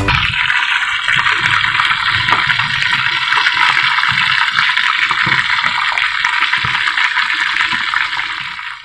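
Pork belly deep-frying in hot oil: a loud, steady sizzle with small crackles that starts suddenly and fades out at the end.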